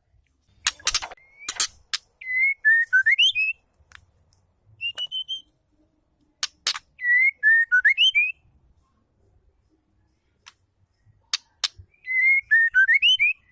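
Female white-rumped shama calling: a few sharp ticking clicks, then a short clear whistled phrase that dips and rises. The pattern comes three times, with one short high whistle between the first two.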